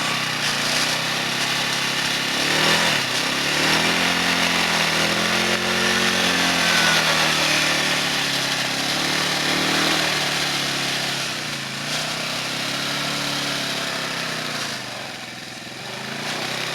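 Motorcycle engine revving up and down again and again, its pitch rising and falling every second or two.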